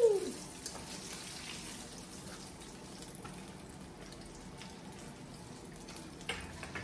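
Chicken frying in a skillet of hot oil: a steady sizzle, with a few light clicks.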